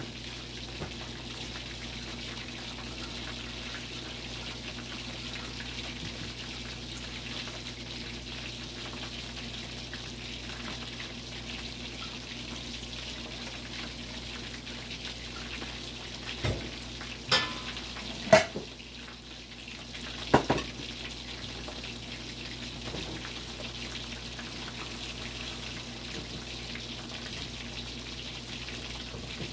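Chicken leg quarters frying in hot oil with a steady crackling sizzle. A few sharp clanks, the loudest sounds, come close together a little past halfway.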